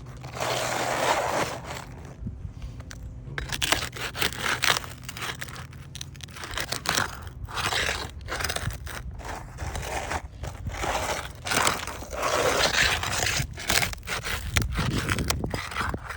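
Brittle asphalt roof shingles being scraped and pried up to get at the nails beneath: a repeated scraping and crunching in bursts of a second or two, with short clicks between them.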